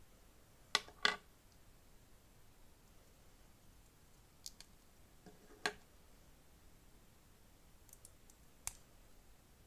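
Plastic Lego bricks clicking as they are snapped together and handled. A sharp pair of clicks comes about a second in, then single clicks every few seconds.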